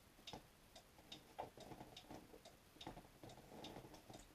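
Near silence with a clock ticking steadily in the room.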